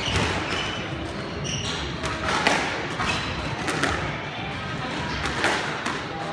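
Squash court sounds between rallies: occasional sharp knocks of a squash ball, brief high squeaks of court shoes on the hardwood floor, over a murmur of voices in the hall.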